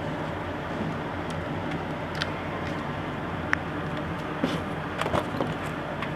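Scattered light clicks and taps of small laptop parts being handled and fitted, over a steady background hum.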